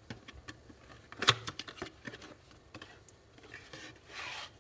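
Hands handling and opening a small cardboard box: scattered taps and clicks of the cardboard, a sharp click about a second in, then a longer scraping rustle near the end as the box's end flap is pulled open.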